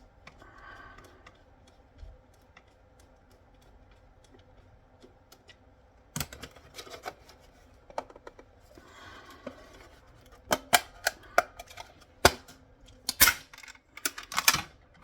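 Sharp plastic clicks and knocks from a radio-control handset's casing being forced apart after its screws refused to undo. The strikes come sparsely at first, then in a denser, louder run in the last few seconds.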